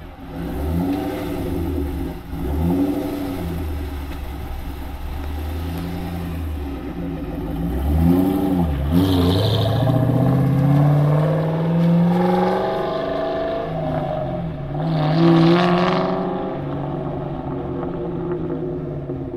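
2003 Ford Mustang Mach 1's 4.6-litre DOHC V8 through a loud aftermarket X-pipe exhaust, revved sharply a few times in the first seconds. It then accelerates away with the engine pitch climbing steadily for a few seconds, and surges hard again about three-quarters of the way through.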